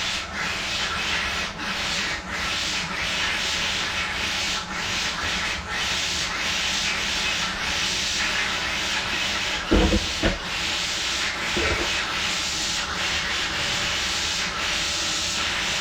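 Water running with a steady hiss as a newly installed electric water heater fills, the hot tap left open to let the air out. A couple of brief low knocks come about ten seconds in.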